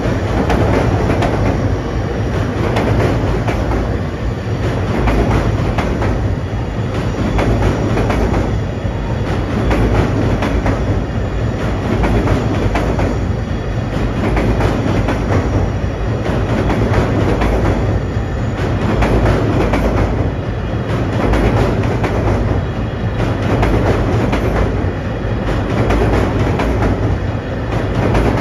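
JR Freight M250 series Super Rail Cargo electric freight train rolling steadily past, a loud continuous rumble. Its wheels clack over the rail joints in a regular beat about every second and a half as the container cars go by.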